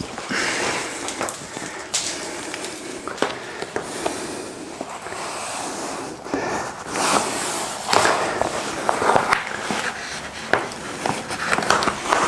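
Crinkling and rustling of a plastic sealing membrane being handled and pressed along an attic-ladder frame, with many small crackles and scrapes.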